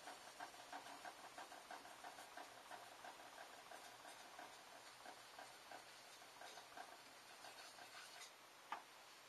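A makiri knife blade being stroked back and forth on a whetstone: faint, quick, rhythmic scraping of steel on stone that thins out in the second half. A single sharp click comes near the end.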